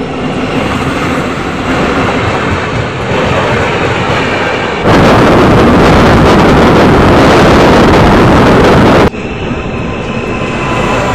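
Express train running at speed, heard at an open coach door: a steady rush and rumble of wheels while another train passes on the next track. About five seconds in it turns to a much louder, harsher din for about four seconds as the coach crosses a steel truss bridge. That stops abruptly, and the rush of a passing electric-hauled train follows.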